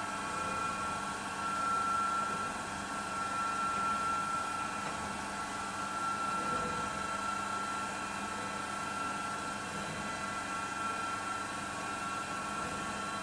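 SYIL X7 CNC milling machine running steadily, with a constant high whine over a mechanical hum.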